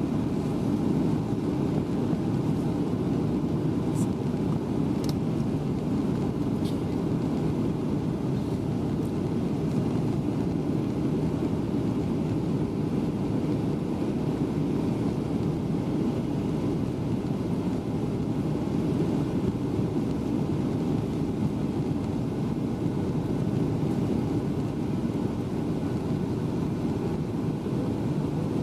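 Steady cabin noise of a Boeing 737-800 in flight, heard from a window seat: the drone of its CFM56 turbofan engines and the rush of air over the fuselage, even and low-pitched. A few faint clicks come through early on.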